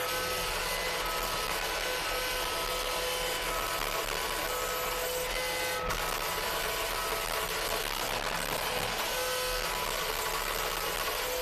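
CASE TR270B skid steer running steadily with its rototiller attachment, a continuous machine noise with a pitched tone that keeps switching on and off.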